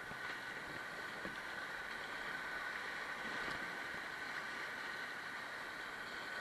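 Steady rush of a Class I–II whitewater rapid breaking around a kayak being paddled through it, with a few faint splashes.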